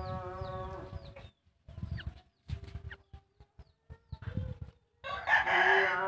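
Background music with held notes that cuts out about a second in, leaving a few seconds of scattered short calls and clicks broken by dead gaps, then comes back loudly near the end.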